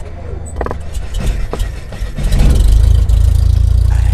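Logo-reveal sound design: a deep rumble that swells and becomes much louder about two seconds in, with sharp crackling hits over it.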